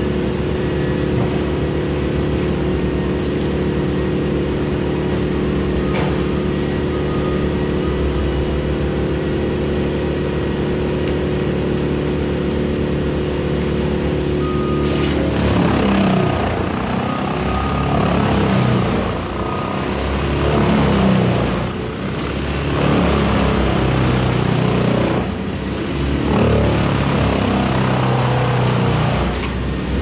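Engine idling steadily. About halfway through, a louder, uneven engine rumble with changing noise joins it and rises and falls to the end.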